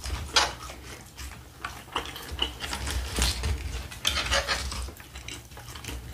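Forks scraping and clicking against a serving tray of taco salad as two people dig in, with irregular crunches from the tortilla chips.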